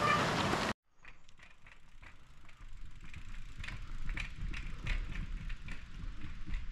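A loud, steady rushing noise that cuts off abruptly under a second in, then an approaching mountain bike: a low rumble of tyres on the trail with irregular sharp clicks from its freehub ratchet and drivetrain, growing louder as it nears.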